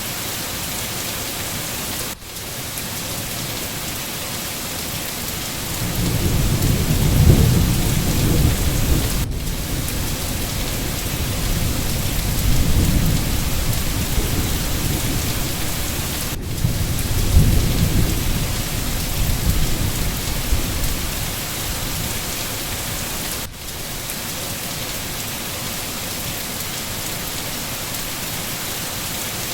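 Steady heavy rain hissing on forest foliage, with thunder rumbling and rolling for about fifteen seconds from around six seconds in, swelling three times. The rain drops out for an instant roughly every seven seconds.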